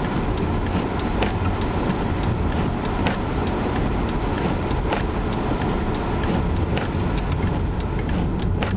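Car interior road noise while driving on snowy roads in a blizzard: a steady low rumble of engine, tyres and wind, with faint sharp clicks about once a second.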